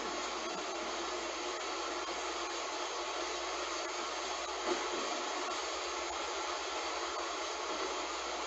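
Heavy rain falling in a steady hiss, with one brief louder tap about halfway through.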